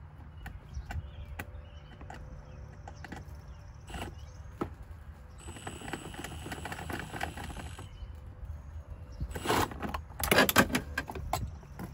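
Cordless drill spinning an 8 mm socket on a universal joint and extension, unscrewing the rear screw of the HVAC blend door actuator under the dash; the motor whines steadily for about two and a half seconds. Near the end comes a quick run of clicks and rattles.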